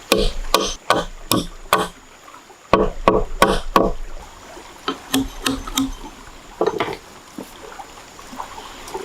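Repeated hard knocks, like blows striking wood, about three a second in two runs, followed by a few lighter knocks.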